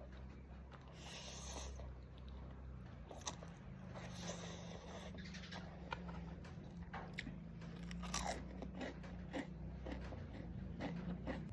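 A person eating close to the microphone, biting and chewing food with short crunches scattered through, over a steady low hum.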